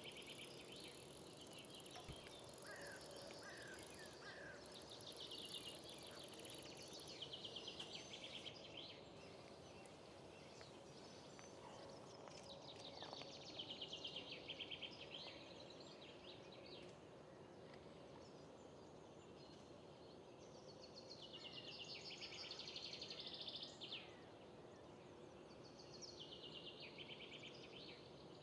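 Faint outdoor ambience with a songbird singing short, rapid, high-pitched trilled phrases every few seconds, and a few short downward-sliding notes near the start.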